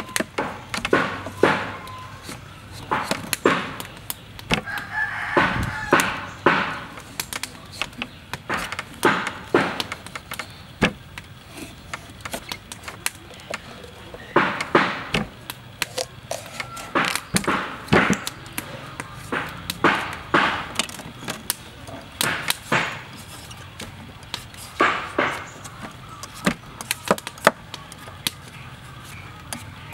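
Knife and vegetable peeler cutting and peeling a firm green papaya: a long run of short, crisp scraping strokes, irregular, about one a second.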